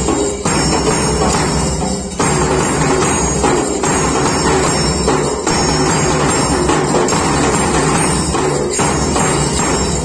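A small percussion band plays a steady marching beat: a bass drum struck with a stick, with hand cymbals clashing and a triangle ringing over it.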